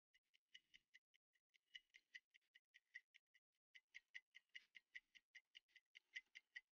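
Faint, fast clock-like ticking of a stopwatch sound effect, about five even ticks a second.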